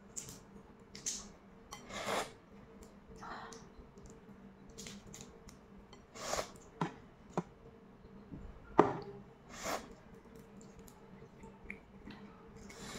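Close-up eating sounds of a balut: scattered crackles as the eggshell is picked off by hand, and wet bites and chewing of the egg. The sharpest click comes about nine seconds in.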